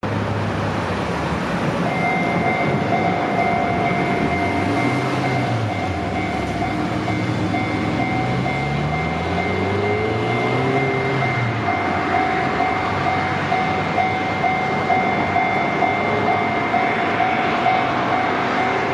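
Japanese level crossing's electronic warning bell starts about two seconds in and rings on in an even repeating pattern. Underneath is the steady rush of a train on the line, with low tones rising and falling.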